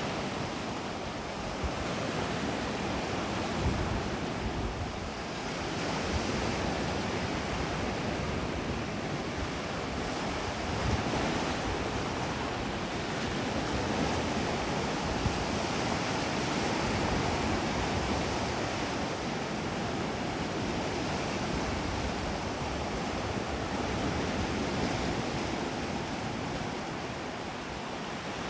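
Sea waves washing onto the beach in a continuous wash that slowly swells and eases, with wind gusting across the microphone.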